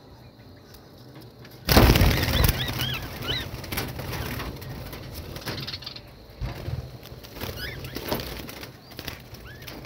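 A flock of caged budgerigars chirping, many short rising-and-falling chirps. A loud rough burst of rustling noise about two seconds in.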